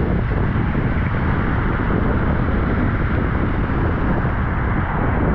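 Wind buffeting a phone microphone, a loud, uneven low rumble, over the steady hiss of rain and car tyres on a wet road.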